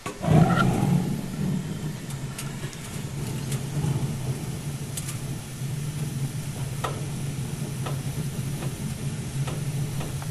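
Gas water heater burner lighting with a sudden whoosh, then burning with a steady low rumble and a few faint ticks.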